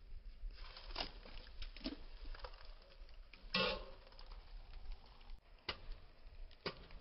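Chicken eggs being cracked open by hand over steel bowls: a few short, sharp cracks at irregular spacing, the loudest a little past halfway.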